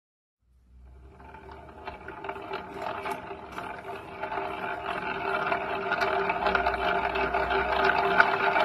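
Worn Vittorazi Atom80 paramotor reduction drive (redrive gearbox) turning, a steady whine and drone with a dense rattle of clicks over it: the sound of a redrive that needs rebuilding. It starts about half a second in and grows louder.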